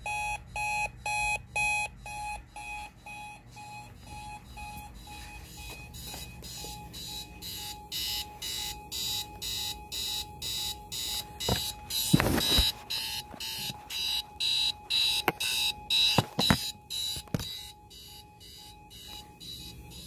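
Digital alarm clock sounding its alarm: rapid, evenly repeated electronic beeps, louder in the middle stretch. A few knocks fall in the middle.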